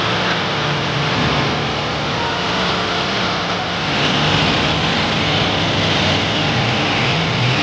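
Honda Africa Twin motorcycle's parallel-twin engine running steadily, with a dense mechanical noise behind it, getting slightly louder about four seconds in.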